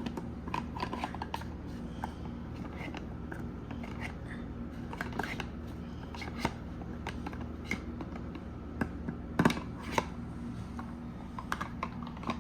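Scattered small clicks, taps and scrapes of plastic Play-doh toy parts being handled and pressed, over a steady low hum; a louder clatter about nine and a half seconds in.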